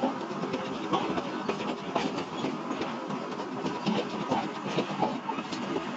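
Steady mechanical clatter of forge-shop machinery, full of irregular sharp metallic clicks and knocks with louder knocks about once a second.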